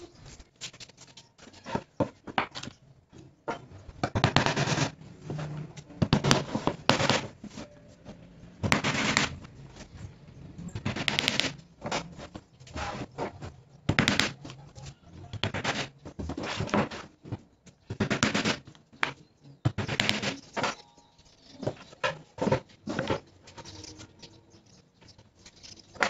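Claw hammer driving small nails into a plywood panel: sharp strikes in quick runs, with short pauses between them.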